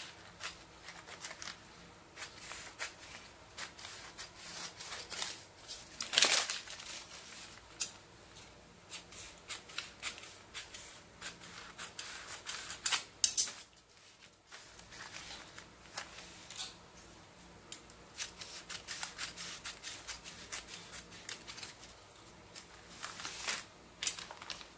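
Scissors snipping through brown pattern paper in a long run of irregular cuts, with a brief pause about halfway through.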